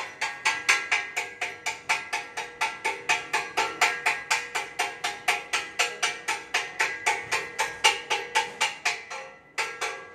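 Chipping hammer striking the slag off a fresh weld bead on a steel flat bar, about five sharp ringing metallic strikes a second. The strikes pause briefly near the end, then start again.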